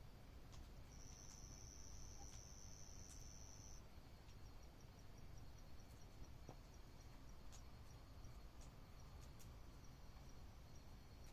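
Night insects calling, faint: a continuous high trill lasting about three seconds, then a fainter high chirp repeated about five times a second, with a few scattered soft clicks.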